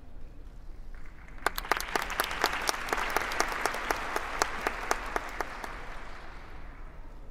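Spectators applauding: the clapping starts about a second in, builds, and fades away near the end.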